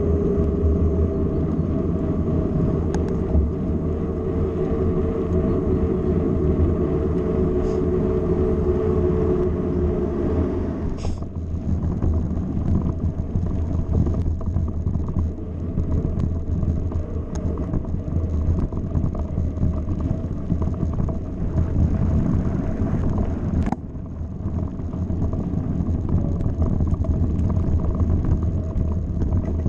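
Mountain bike on the move, heard from a handlebar-mounted camera: steady wind and tyre rumble. For the first eleven seconds or so the tyres hum steadily on tarmac, then give way to a rougher rumble on a dirt track, with a sharp knock at the change and another about twelve seconds later.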